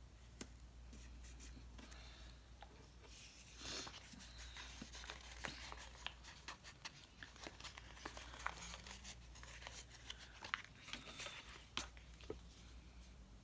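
Paper sticker sheets and planner inserts being handled: a short paper rustle about four seconds in, then scattered light clicks and taps as stickers are peeled off and pressed down onto the page.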